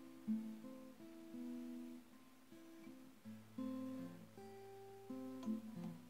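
Acoustic guitar played slowly: plucked notes and chords ringing on one after another, with a low bass note coming in about three seconds in.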